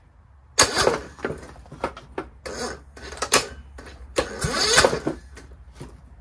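Kohler Courage 19 hp single-cylinder engine turning over on its electric starter, starting about half a second in. It chugs with a regular beat about every 0.4 s as it gets past each compression stroke with the spark plug in. It cranks without starting on a jump-starter battery that has sagged below 12 volts.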